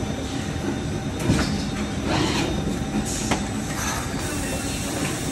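309-ton JSW all-electric injection molding machine running through its cycle: a steady mechanical rumble with a few sharp clacks and hisses from the moving clamp and mould, the loudest about a second in and more around two and three seconds in.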